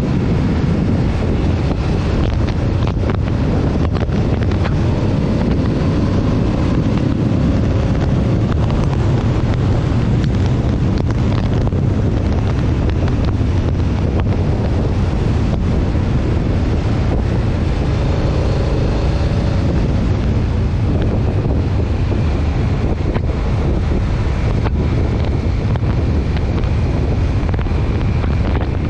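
Steady, heavy wind buffeting the microphone of a handlebar-mounted camera while riding at speed, with faint wavering tones underneath now and then.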